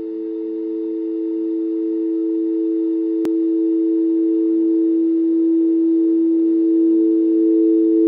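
Soundtrack music: a sustained drone of a few held low tones, swelling up over the first seconds and then holding steady. A single brief click about three seconds in.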